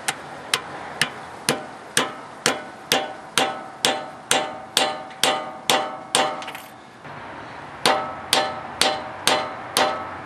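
Hammer striking a steel punch tool seated in a spark plug hole, about two sharp blows a second, each with a short metallic ring. The blows expand the knurled end of a threaded spark plug insert so it bites into the cylinder head. They stop for about a second past the middle, then resume at the same pace.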